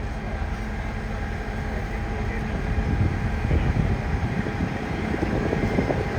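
A vehicle engine running steadily: a continuous low rumble with a steady hum over it.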